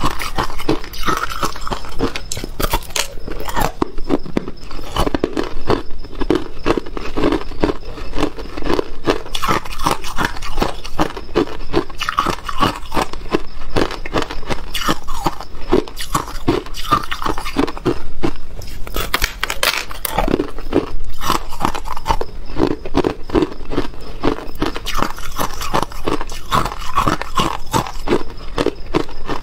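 A person biting and chewing a frozen clump of crushed ice: a steady run of dense, crackling crunches.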